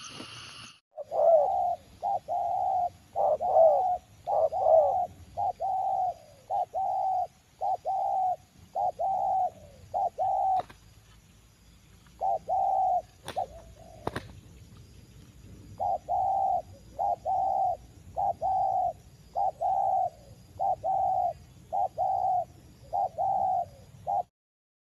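Spotted dove cooing: runs of repeated rolling coo phrases, breaking off for a few seconds about halfway. Two sharp clicks fall in that pause, and a faint steady insect drone sits high above.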